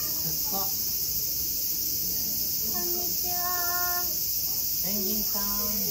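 Steady, high-pitched chorus of summer insects. A child's voice calls out briefly about three seconds in, and another voice sounds near the end.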